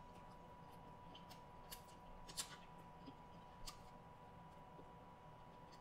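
Faint crackling clicks of a cooked shrimp's shell being peeled apart by hand, a few scattered snaps with the loudest about two and a half seconds in, over near silence.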